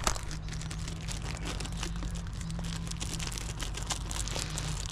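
Clear plastic packaging bag crinkling and rustling in gloved hands as it is opened to take out a new wheel seal, a dense run of small crackles.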